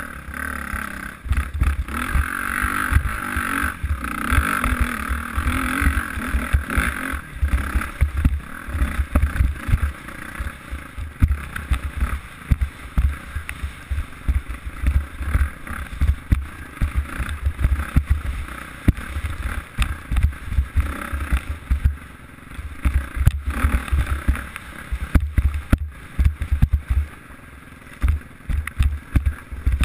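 Off-road dirt bike engine running under load on a rough climb, its note rising and falling, with frequent knocks from the rough ground and wind buffeting on the bike-mounted camera's microphone.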